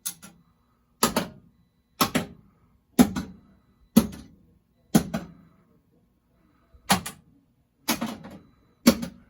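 Williams High Speed pinball machine in its solenoid test, firing its coils and flasher circuits one after another: a sharp mechanical clack about once a second, with one beat missing about six seconds in.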